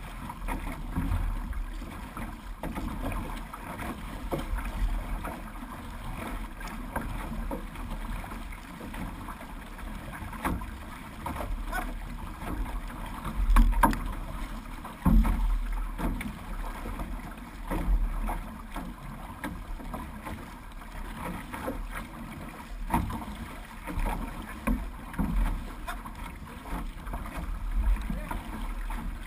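Six-person outrigger canoe under way: paddles dipping and pulling through the water and water washing against the hull, over a low rumble of wind and water on the microphone, with irregular louder splashes.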